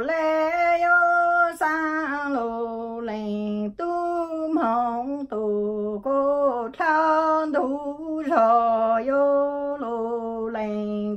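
A woman singing Hmong lug txaj unaccompanied: one voice in short phrases of held notes that step down in pitch at the end of each phrase, with brief breaths between phrases.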